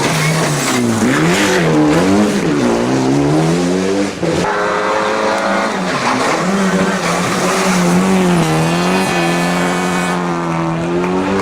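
Rally car engine at high revs, its pitch rising and falling again and again as the driver lifts, brakes and changes gear, with a brief break about four seconds in and a long steady pull near the end.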